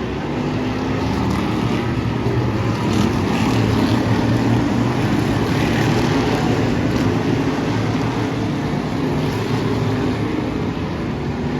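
Race car engines running in a steady drone, getting a little louder towards the middle.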